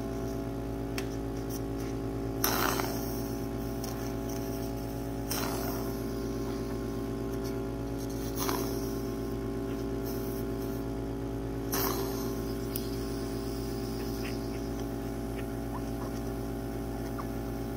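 Suction machine motor running with a steady hum, with four short sucking noises about three seconds apart as the tip draws milk out of a newborn puppy's nose and mouth, clearing the airway to prevent aspiration pneumonia.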